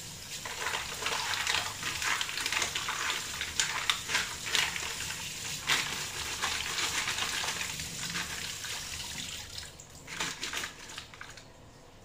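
Kitchen tap running into a stainless steel colander of mussels being rinsed by hand, the shells clattering against each other and the metal bowl. The water and clatter die down near the end.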